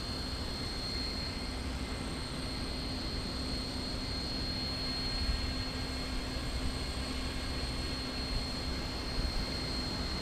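Small remote-controlled aircraft's motor running steadily, a low hum with a high whine held at one pitch, while wind rumbles on the microphone.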